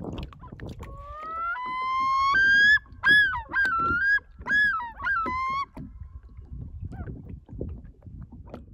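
A pair of common loons calling: long held wailing notes that step upward, two voices overlapping, then a run of wavering, rising-and-falling notes that stop suddenly about two thirds of the way through.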